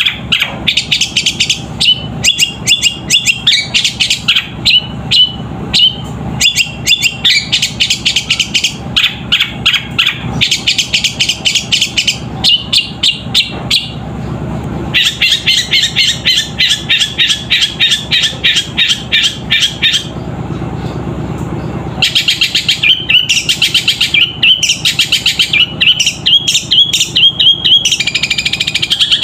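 Long-tailed shrike (cendet) singing loud, fast runs of sparrow-like chirps, imitating Eurasian tree sparrow calls, with a brief lull about two-thirds of the way through.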